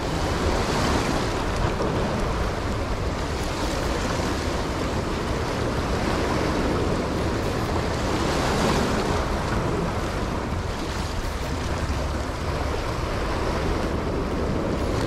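Small waves washing and breaking against jetty rocks, with wind rumbling on the microphone. The wash swells up about a second in and again around eight to nine seconds in.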